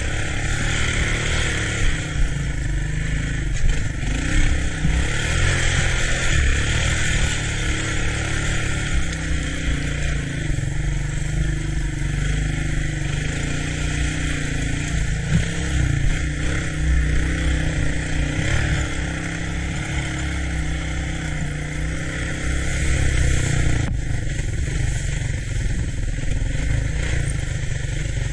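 Engine of an ATC three-wheeler running under load, its pitch rising and falling as the throttle is worked through a hill climb, with a steady hiss over it.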